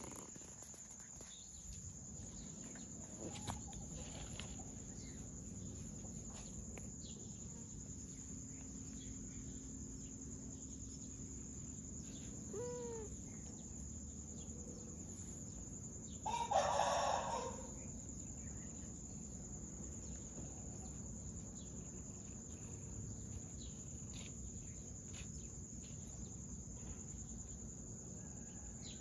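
A rooster crows once, the loudest sound, a little past halfway, with a few fainter short calls earlier over a steady high-pitched hum.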